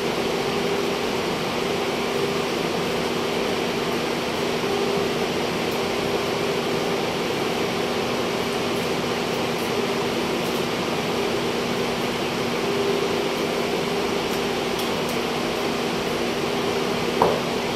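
Steady whir of a ceiling-mounted refrigeration evaporator's fans, with a low hum at two steady pitches. A single sharp knock sounds near the end.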